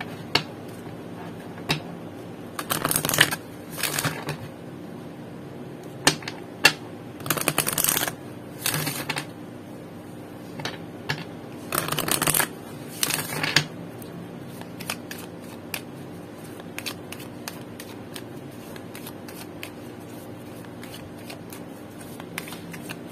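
A deck of oracle cards being shuffled by hand: several brief riffles of cards flicking together in the first half, then fainter taps and slides of the cards from about the middle on.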